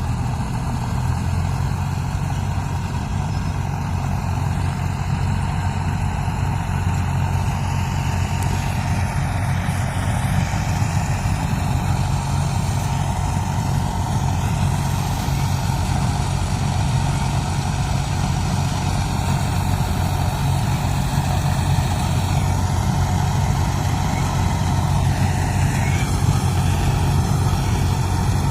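John Deere 5310 diesel engine running steadily at a constant speed, a deep even drone.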